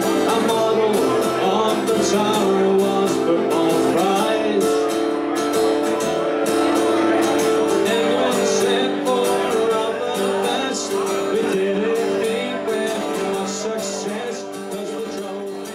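Ballad music with strummed acoustic guitar and a singing voice, fading out near the end.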